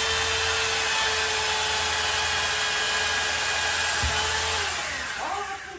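Corded electric drill boring into a tiled wall, running at a steady whine, then released near the end and spinning down.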